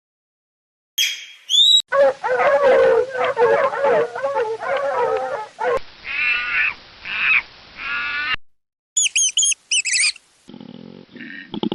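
Animal calls from several different animals in quick succession, with abrupt cuts between them: a few quick high chirps, a stretch of many overlapping calls, three drawn-out calls, then more quick chirps and some lower calls near the end.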